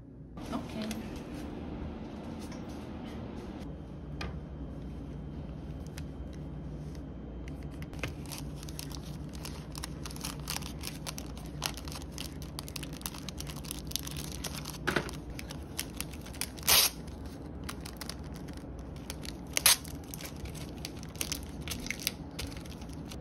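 Clear plastic packaging bags crinkling and rustling as they are handled. The bursts come thicker from about a third of the way in, with two louder crinkles in the last third.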